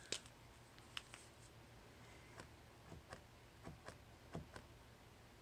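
Faint, irregular clicks of a paint marker's spring-loaded nib being pressed down on paper again and again to prime it and get the ink flowing.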